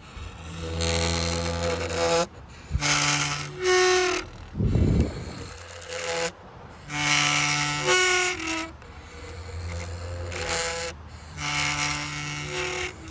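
Rotting cedar wood played as a giant daxophone-like instrument, sounding a string of short pitched notes that jump in pitch from one note to the next, with a dull low thump about five seconds in.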